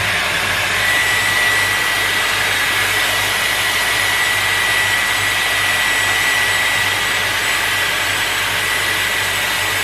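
Dyson Airwrap hair styler blowing on its full heat and full speed setting through the curling barrel while a section of hair is wound on it. It makes a steady rush of air with a thin, high whine held over it.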